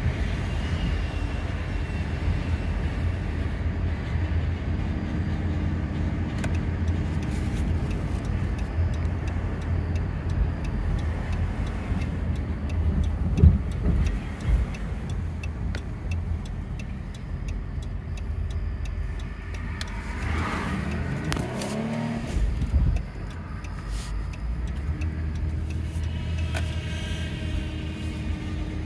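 Cabin sound of a 2012 Dodge Grand Caravan minivan driving slowly at low engine speed: a steady low engine and road rumble, with scattered clicks and a short rising and falling whine about two-thirds of the way through.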